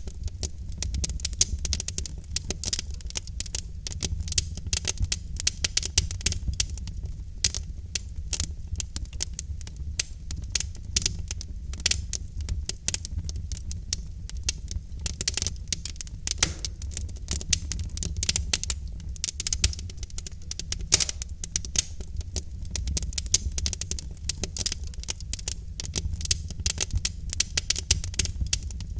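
Wood fire in a fireplace crackling and popping constantly, with many irregular sharp snaps over a steady low rumble of the flames.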